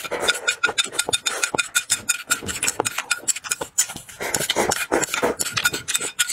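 Chopsticks rapidly clicking and scraping against a bowl as sauce-soaked rice is shoveled into the mouth, mixed with close chewing mouth sounds; a dense run of sharp clicks, several a second.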